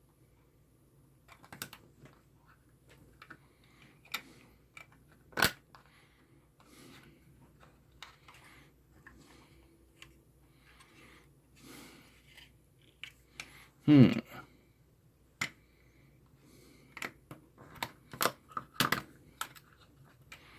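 Small plastic parts of a multimeter's LCD housing clicking and tapping as they are handled and pressed together, irregular and sparse, with a louder short low sound about two-thirds of the way through.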